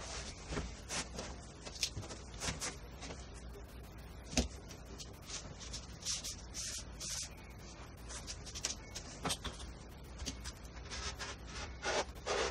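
A large sheet of leather being shifted and smoothed across a wooden workbench: quick, irregular rubbing and scuffing with scattered light knocks, one sharper knock about four seconds in, all played back sped up.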